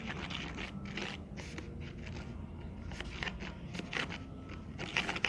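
A paintbrush stirring a sticky mixture of white glue and liquid soap activator in a bowl, with irregular wet scraping strokes as the mix thickens into slime.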